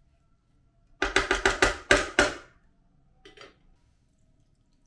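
Plastic slotted spatula knocking against a nonstick frying pan in a quick run of about six ringing strikes, followed by a fainter short sound about a second later.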